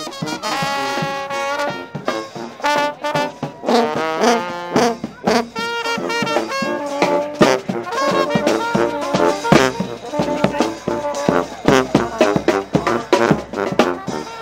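Brass band playing up close: horns and sousaphone over bass drum hits that come thick and regular in the second half.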